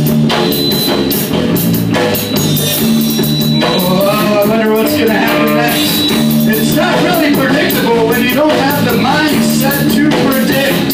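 Loud live rock jam: electric bass and drum kit with cymbals. About four seconds in, a melody line sliding and bending in pitch joins over them for several seconds.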